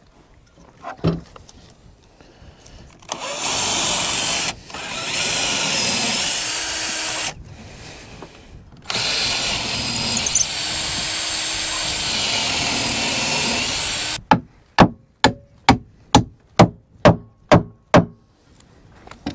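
A handheld power tool runs in two stretches of several seconds each, with a brief break in the first. After it stops, about a dozen sharp, evenly spaced knocks follow at roughly three a second.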